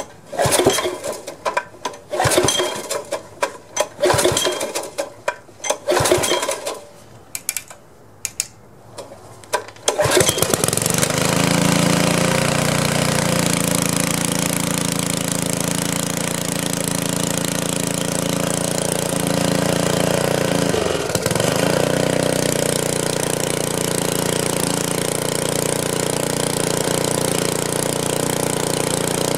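Pressure washer's Briggs & Stratton engine being pull-started, with several short uneven bursts over the first ten seconds before it catches. It then runs steadily with one brief dip about twenty seconds in, no longer pulsing now that water has been drained from the carburetor bowl and the choke can stay wide open.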